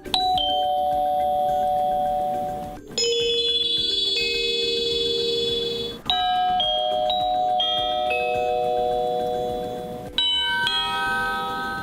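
Honeywell Decor wireless door chime (RCWL3503A) playing its selectable chime tunes one after another. It starts with a two-note ding-dong, then plays longer multi-note chimes starting about three, six and ten seconds in, each note ringing on.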